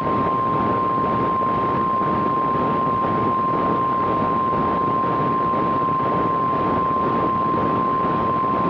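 NOAA Weather Radio 1050 Hz warning alarm tone: one steady pitch held for the whole stretch, over heavy radio static. It is the alert that announces a tornado warning broadcast.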